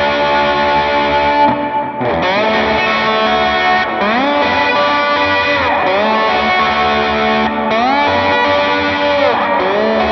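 Les Paul electric guitar with humbucking pickups, played slide through a Line 6 HX Stomp preset with heavy compression and overdrive. Sustained lead notes glide up and down between held pitches several times.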